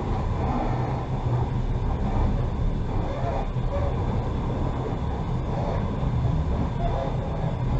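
Passenger railway carriage in motion, heard from inside: the steady rumble of the wheels running on the rails.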